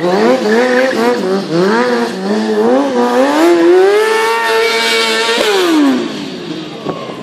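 Stunt motorcycle engine revving in repeated short rising and falling blips, then climbing steadily to high revs that are held for over a second before the throttle closes and the revs fall away sharply.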